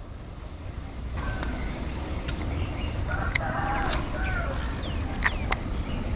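Chickens clucking, a few short calls, with several sharp clicks and a steady low rumble underneath.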